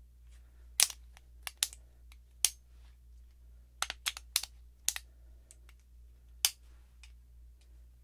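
Two Springfield Armory 1911 pistols being handled, giving a string of sharp metallic clicks and clacks, about a dozen in uneven groups. The loudest come about a second in, near the middle and about six and a half seconds in.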